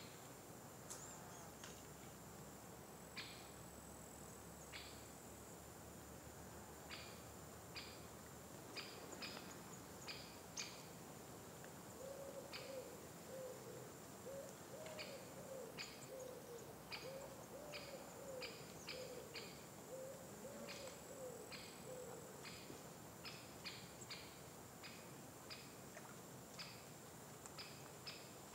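Faint natural ambience: a steady high insect trill, scattered short high bird chips, and through the middle a run of low, wavering hooting notes from a bird.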